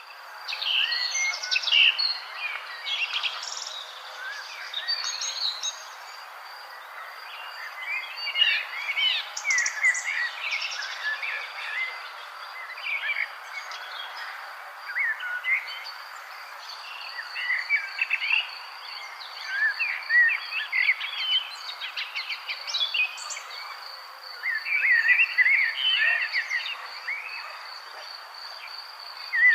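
Several birds singing and calling in overlapping bursts of chirps and whistles, over a steady high insect trill and a soft background hiss.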